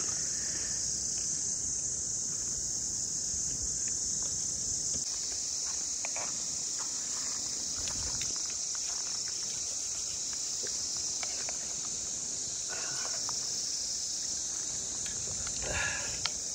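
A steady, high-pitched insect chorus, with a few faint clicks.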